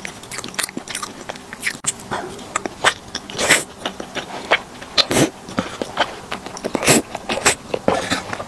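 Close-miked wet slurping and chewing of thick, saucy potato-starch noodles: irregular sucking and smacking sounds with several longer slurps.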